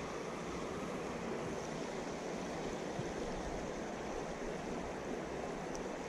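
Shallow creek running over rocks: a steady rush of flowing water.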